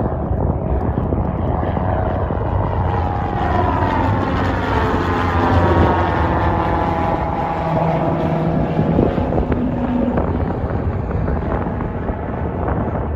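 Canadair CL-415 water bomber's twin turboprop engines at climb power as it flies overhead just after takeoff. The propeller drone drops in pitch from about four seconds in as the aircraft passes.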